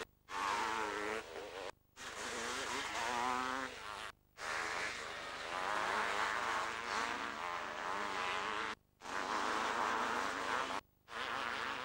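500cc two-stroke motocross bikes racing, engines buzzing and rising and falling in pitch as the riders work the throttle. The sound cuts out briefly four times.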